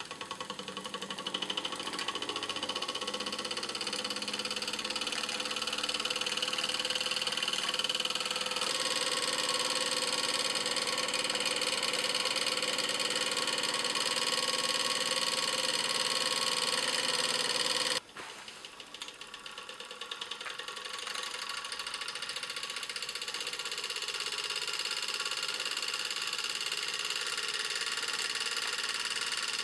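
Bing toy steam engine from about 1895, a vertical boiler driving an oscillating cylinder and flywheel, running at speed with a rapid, steady ticking chuff. It picks up over the first few seconds, drops off abruptly about 18 seconds in, then builds back up.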